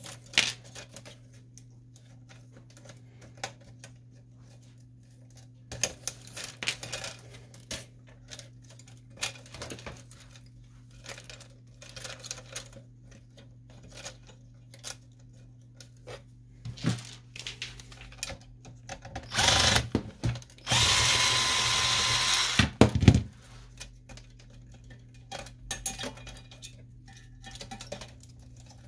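Plastic and metal printer parts clicking and rattling as they are handled and pulled apart. About two-thirds of the way in, a cordless drill/driver runs twice, the second run about two seconds long, followed by a knock.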